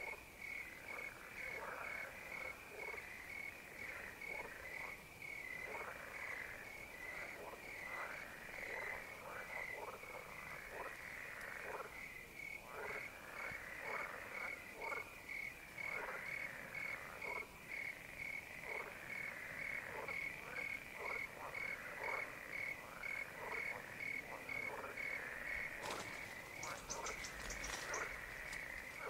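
A chorus of pond frogs calling, many short croaks overlapping, with crickets chirping in a steady, even pulse above them. A brief rattling buzz joins in about two seconds before the end.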